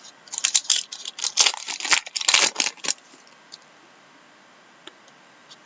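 Crinkling and tearing of a trading card pack's foil wrapper being ripped open, about three seconds of quick crackles, followed by a few light clicks of cards being handled.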